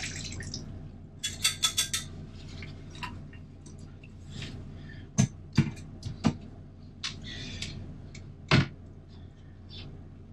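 Water tipped from a kettle splashing into a stainless-steel sink, then the clatter of stowing kitchen things in a small cupboard: a quick rattle about a second and a half in, then several sharp knocks of items set down and a cupboard door, the loudest near the end.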